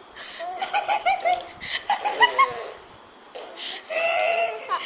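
A one-year-old baby laughing and making high-pitched vocal sounds in short bursts, with a longer held high note near the end.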